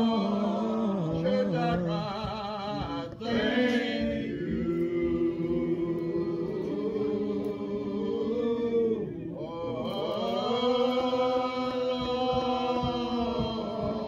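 A man singing a slow devotional hymn in long, drawn-out notes that slide and waver between pitches. He breaks off briefly for breath about three seconds in and again around nine seconds.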